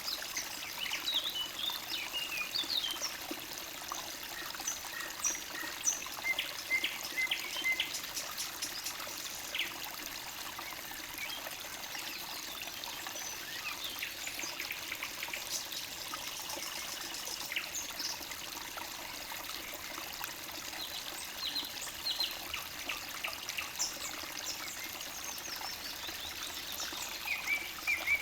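Forest stream trickling steadily over stones, with small birds chirping and singing in short phrases at intervals over it.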